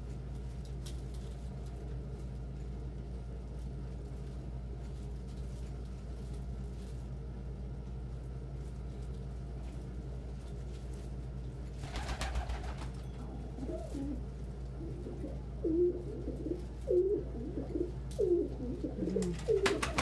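Domestic pigeons cooing, short wavering coos repeated over and over through the second half and growing louder: courting males. A brief rustling rush comes about twelve seconds in, and a steady low hum runs beneath throughout.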